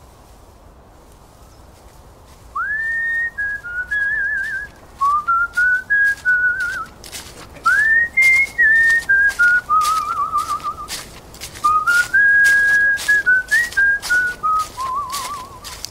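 A person whistling a tune from about two and a half seconds in: single clear notes in short phrases, with upward slides into some notes and wavering trills on held ones.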